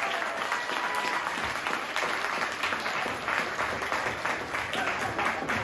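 A small audience applauding, with many hands clapping steadily.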